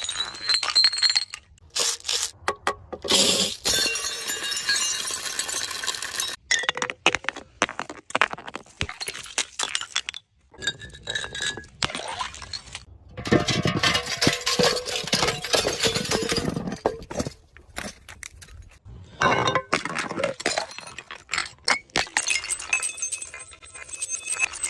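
Glass bottles being smashed and crushed: repeated sharp breaks, clinking shards and ringing glass, in stretches of a few seconds with short pauses between.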